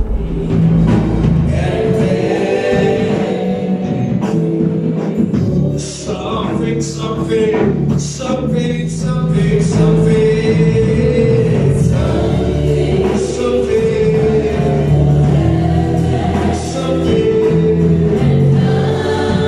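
Gospel choir singing a church song, many voices holding long notes together.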